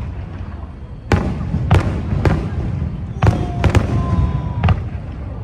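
Aerial fireworks bursting: a series of sharp bangs, about seven in a few seconds, over a steady low rumble of the display.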